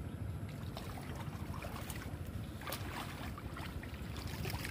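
Steady low wind rumble on the microphone, with light rustling and many small crackles of bitter gourd leaves and vines being handled.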